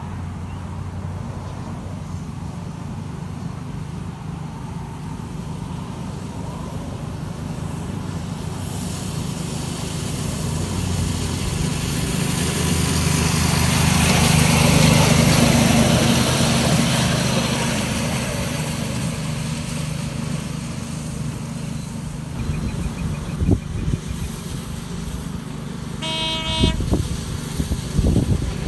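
7¼-inch gauge miniature locomotive running along the track, a steady drone with rail noise that grows louder as it passes close by mid-way and then fades. Near the end it gives a short horn toot.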